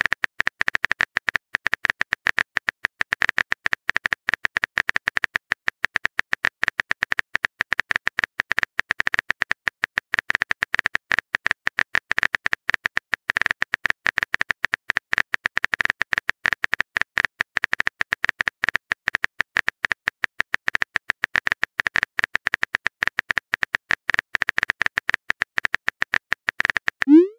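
Phone keyboard typing sound effect: a long, rapid run of short, even key-tap clicks as a text message is typed out.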